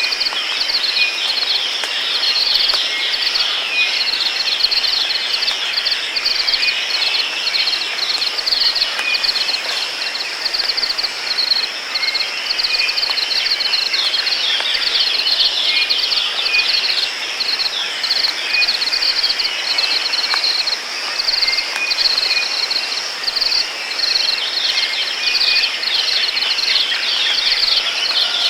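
Steady rain hiss under a constant, pulsing insect chorus, with short bird chirps scattered throughout.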